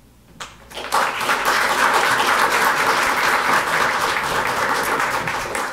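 Small audience applauding: a few first claps about half a second in, then full steady applause.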